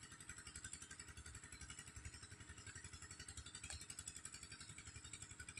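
Faint, steady engine running at a distance, a regular low throb with a hiss above it.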